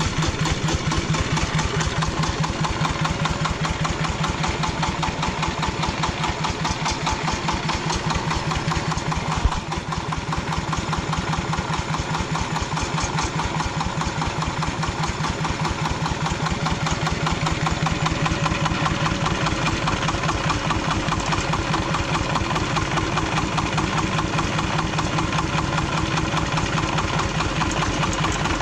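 Jiang Dong ZH1110ND single-cylinder diesel engine of a homemade two-wheeled-drive tractor running steadily at idle, with an even pulsing beat. One short, sharp knock stands out about nine and a half seconds in.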